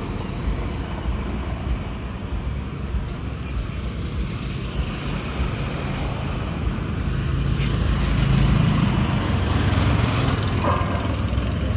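Street traffic: the steady low noise of road vehicles, with one passing closer and louder about eight to ten seconds in.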